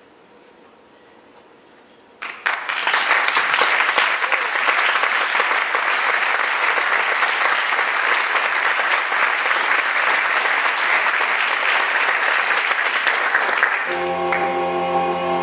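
Theatre audience applauding, starting suddenly about two seconds in after a hush and continuing at an even level; near the end the clapping fades as music with sustained notes begins.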